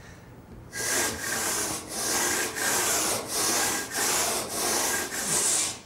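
Large two-handled stone saw (a frig bob) cutting a block of Bath stone by hand in steady back-and-forth strokes, about eight of them starting under a second in, each a gritty scraping, with a faint steady high tone running under the strokes.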